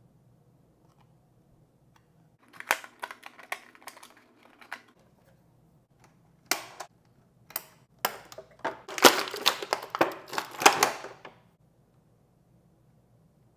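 Clear plastic blister tray crackling and scissors snipping as an action figure is cut free and pulled out of its packaging: scattered crinkles and sharp snaps, then a longer, louder burst of crackling plastic about nine seconds in.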